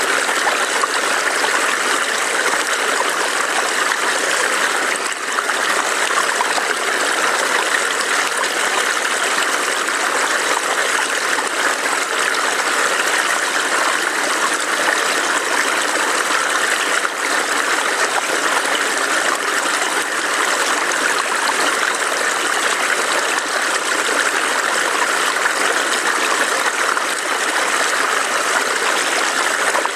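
A small forest stream burbling over rocks: a steady, even rush of water.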